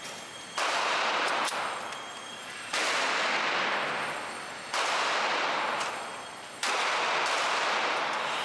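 Four handgun shots about two seconds apart, each a sudden loud crack followed by a long fading ring, with fainter sharp cracks in between.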